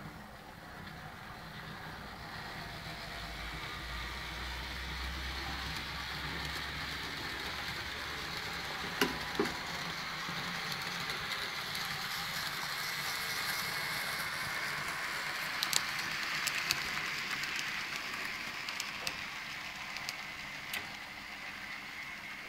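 N-scale (1:160) model of a DB class 403 electric multiple unit running along the layout track: a steady whirring hiss of its small motor and wheels that swells in the first few seconds as the train comes closer. A few sharp clicks are heard about nine seconds in and again in the second half.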